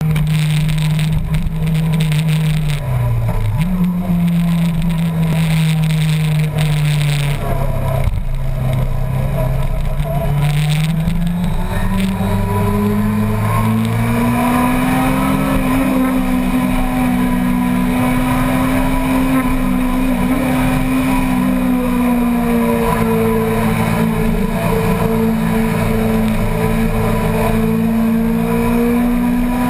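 Sport motorcycle engine heard from the rider's own bike, running at road speed with wind rush over the microphone. The engine note dips twice in the first eight seconds, climbs between about twelve and fifteen seconds, then holds steady.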